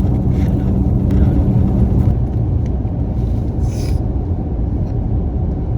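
Steady low rumble of road noise inside a car driving on the highway, with a brief hiss about four seconds in.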